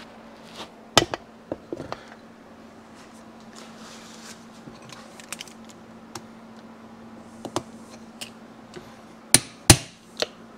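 Hammer striking a hand impact driver to tighten the screws of an aluminium motorcycle crankcase. There are light taps and clinks at first, then two loud sharp blows near the end and a lighter one after them.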